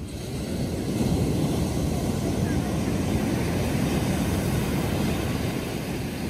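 Ocean surf breaking and washing up the beach, a steady low rush that grows louder about a second in, with wind on the microphone.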